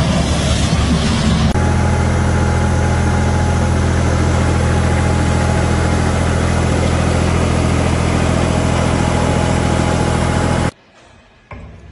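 A mist sprayer's engine runs steadily as the sprayer blows a dense cloud of spray. Before it comes about a second and a half of a noisier engine and fan from a leaf vacuum. Near the end the sound cuts off abruptly to near quiet.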